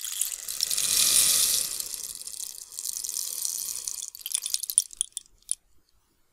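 Water trickling and running for about four seconds, then a scatter of drips that stops a little over five seconds in.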